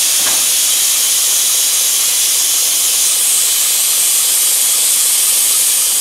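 Compressed air hissing loudly as the side wing of a Ki 100 Russell snowplow car is swung out by its air cylinders. The hiss starts suddenly and holds steady.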